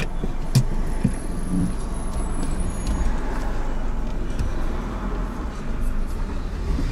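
Car pulling away and driving slowly: a steady low rumble of engine and tyres, with a couple of light knocks in the first second or so.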